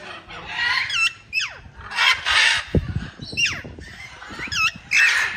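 Birds calling: several quick whistled calls that slide sharply down in pitch, and two louder harsh squawks, one about two seconds in and one near the end.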